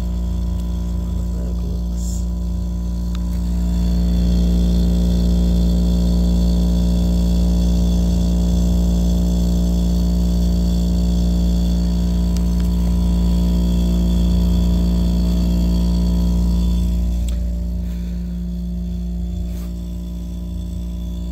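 Sub-Zero wine cooler's newly replaced refrigeration compressor running with a steady hum, louder from about four seconds in until near the end. The recharged sealed system is up and cooling.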